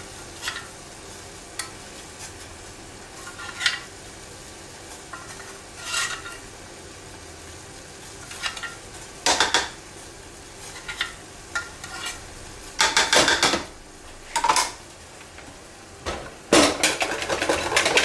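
Metal kitchen utensils clinking and scraping against pans and a bowl in short, irregular bursts. The busiest stretches come about nine, thirteen and seventeen seconds in.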